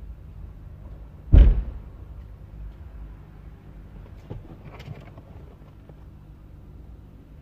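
A single loud thump about a second and a half in, then two lighter knocks a few seconds later, over a steady low workshop rumble.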